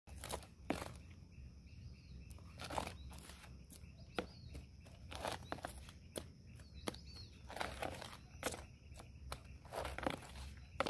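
Small hand trowel scraping into dry earth and tipping soil into a plastic plant pot: an irregular run of short, gritty scrapes and crunches.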